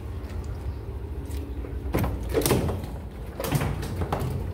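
A few short scraping knocks of hands and gear working at a boat's fish hold, about two seconds in and again near the end, over a steady low rumble.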